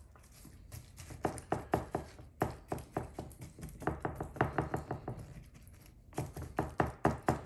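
Silicone spatula tapping and knocking against a metal springform pan while pushing thick cake batter to its edges: a run of quick, uneven taps, a brief pause, then another run near the end.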